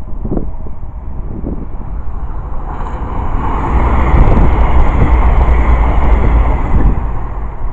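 CrossCountry Voyager diesel multiple unit passing at speed. Its running noise swells about three seconds in, with a thin high whine, and eases off near the end. Wind buffets the microphone throughout.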